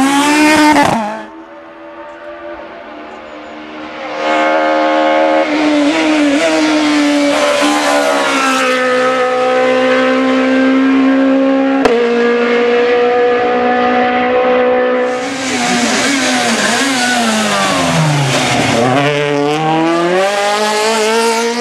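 Super 1600 rally car's high-revving four-cylinder engine at full attack. A loud pass cuts off about a second in. A car then comes closer and holds high revs for several seconds. Near the end the revs fall sharply and climb again.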